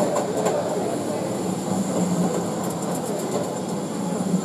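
Model train running along the layout's track: a steady rumble with a few light clicks near the start as the wheels cross rail joints, over faint background voices.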